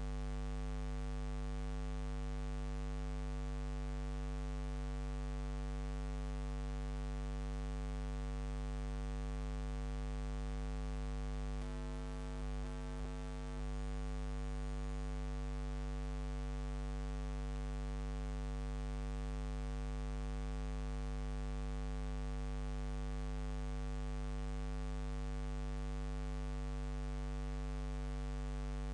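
Steady electrical mains hum with a stack of overtones over faint hiss. It dips briefly a couple of times about twelve seconds in, with no other sound.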